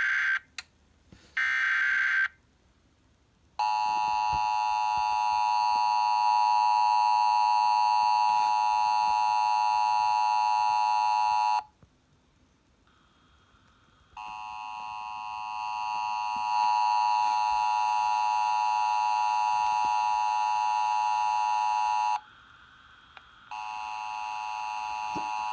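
Emergency Alert System tones. First comes a short burst of the SAME header's buzzing data tone. Then the two-tone attention signal sounds steadily for about eight seconds, stops, and after a couple of seconds of silence a second eight-second attention tone follows; near the end a fainter tone begins.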